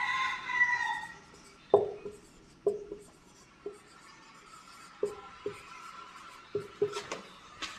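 Marker pen writing on a whiteboard: a series of short, sharp taps and strokes spaced roughly a second apart as letters are written.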